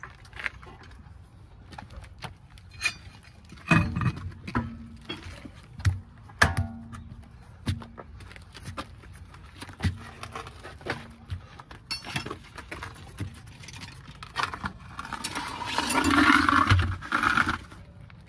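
Floor jack being pumped to raise the car, a series of metallic clanks, one every half second to second, several with a short creak. Near the end comes a louder, longer scraping rattle of metal parts being handled.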